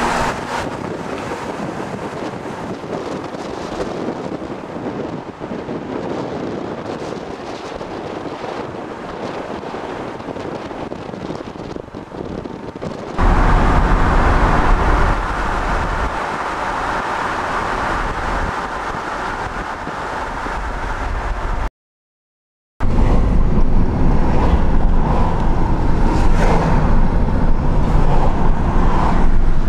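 Steady road noise from a moving car, heard with the camera held at the side window. About 13 seconds in it gets louder, with a deep rumble. Near 22 seconds it cuts out completely for about a second.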